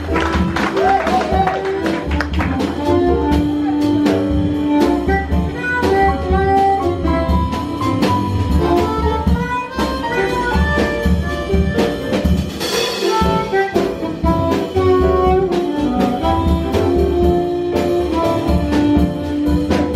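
Jazz-style instrumental music: a horn melody, likely saxophone, moving in stepped notes over bass and drum kit, with a bright cymbal wash about two-thirds of the way in.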